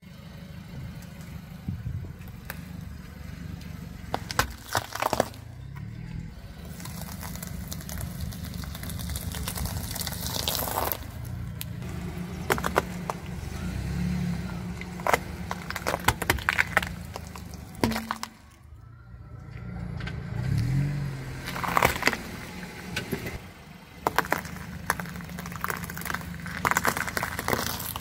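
A car's tyre rolling slowly over vegetables on asphalt, crushing them with sharp cracks and crunches again and again, over the steady low rumble of the car's engine.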